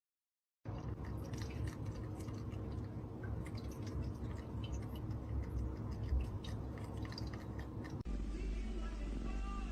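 Irregular wet clicking and crunching of chewing, as of a cat eating, over a low hum. About 8 s in it cuts abruptly to a different clip with a melody playing.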